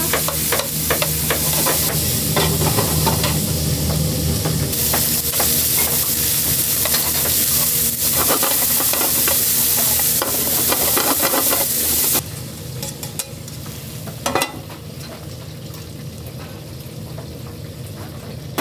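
Sliced pork and onion sizzling loudly in a frying pan over a gas flame, stirred and tossed with metal tongs that click against the pan. About twelve seconds in the sizzle cuts off suddenly, leaving quieter kitchen clatter with a single sharp knock a couple of seconds later.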